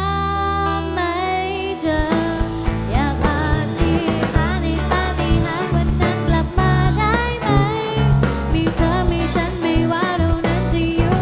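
Instrumental break in a Thai pop-rock band song: a held chord, then drums come in about two seconds in with a steady beat under a lead melody of bending notes and a sustained bass.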